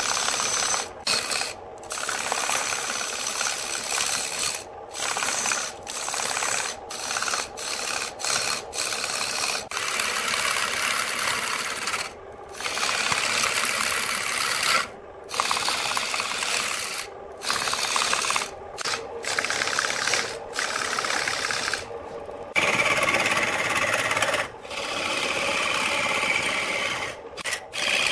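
Lathe tool cutting into a large spinning wooden blank: a rough, steady shaving noise as chips are torn off, broken off by short silences many times over.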